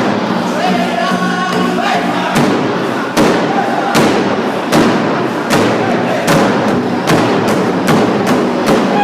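A powwow drum group: a drum struck in unison in a steady beat, about one stroke every 0.8 seconds, with group singing over it, high voices standing out near the start.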